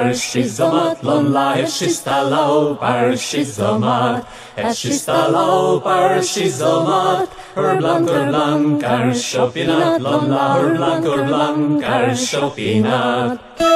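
Chant-like vocal music: singing voices over a steady low drone. It breaks off near the end.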